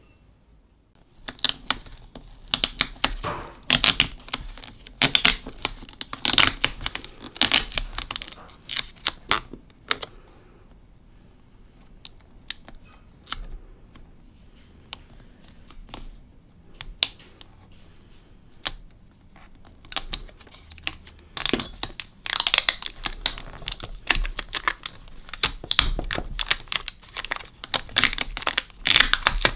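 Adhesive shield being peeled back from the bottom edge of a laptop LCD panel, with fingers and a small tool: irregular clicks, crackling and tearing of tape, densest and loudest in the last third.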